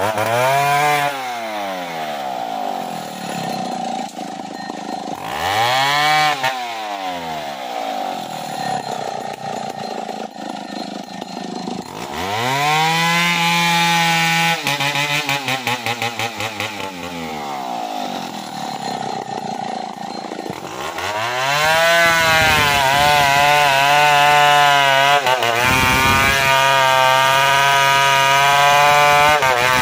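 Two-stroke chainsaw revved up and back down several times, then held at full throttle from about two-thirds of the way in as it cuts into a felled tree trunk.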